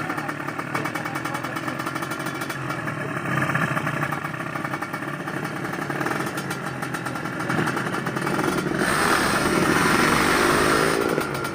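Kawasaki Ninja motorcycle engines running with a rapid, even firing rhythm. About nine seconds in they get louder with gliding revs, then drop back near the end.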